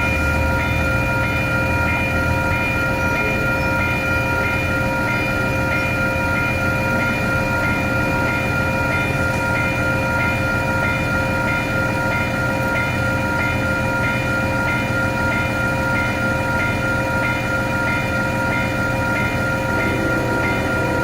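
Multi-chime air horn on a Hyundai Rotem passenger cab car, held in one long unbroken chord. Under it is a faint regular tapping about twice a second.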